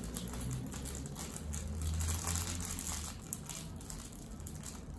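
Small clear plastic bag of toy parts crinkling and rustling as it is handled, with a low steady hum underneath.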